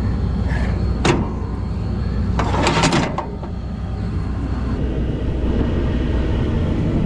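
Combine engine running with a steady low rumble. There is a sharp click about a second in and a short rushing burst just before the middle, after which the engine sounds a little quieter.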